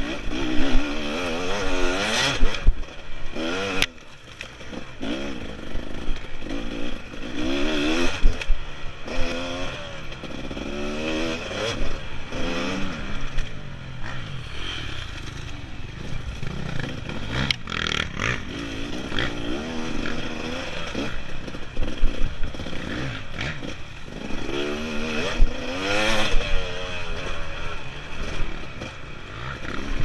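Dirt bike engine revving up and down over and over as it is ridden along a rough woods trail, with a few sharp knocks and scrapes from the bike over the ground and brush.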